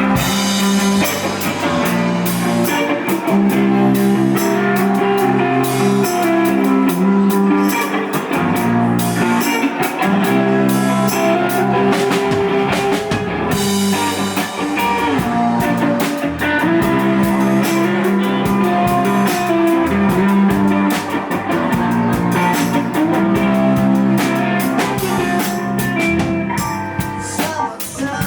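Live rock band playing, with guitar and drum kit, at a loud, steady level.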